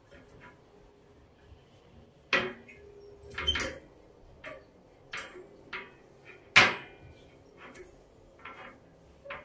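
Household clatter: a series of sharp knocks and clicks as hard objects are set down and handled, with two louder knocks about two and a half and six and a half seconds in.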